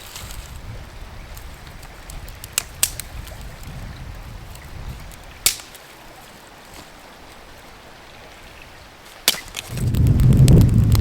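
A few sharp snaps spaced seconds apart over a low rumble of wind noise. Near the end, heavy wind buffets the microphone.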